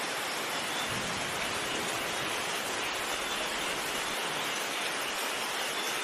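Heavy rain pouring down in a storm, a dense, steady hiss without a break, with a faint low rumble underneath from about one second in until about four seconds in.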